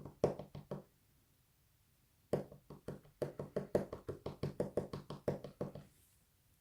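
Rapid light knocking on a disassembled padlock, about six taps a second in two runs with a pause between, as the lock is tapped to shake a key pin out of its plug.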